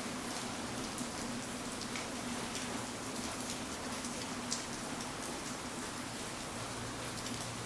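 Steady rain falling, with single drops ticking sharply and irregularly on a hard surface. A faint low hum runs underneath.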